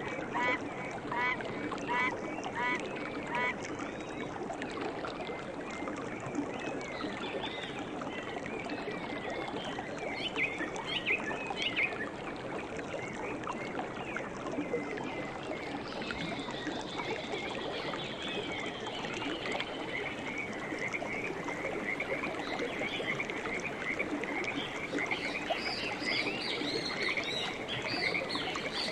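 A steady wash of water with birds calling over it. A run of evenly spaced honking calls, a little over one a second, stops about three seconds in. After that come scattered chirps, then a fast, continuous chirping from about two-thirds of the way through.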